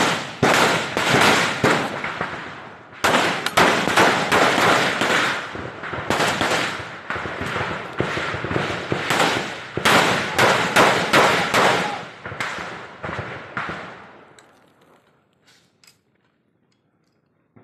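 Sustained rifle and automatic gunfire in a firefight: rapid overlapping shots in long bursts, broken by short pauses. The shooting thins out about twelve seconds in and dies away to a few faint cracks near the end.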